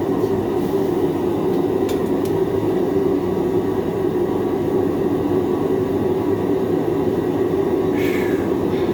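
Forge fire running: a steady, loud rushing noise of air and flame. A short higher scrape sounds about eight seconds in.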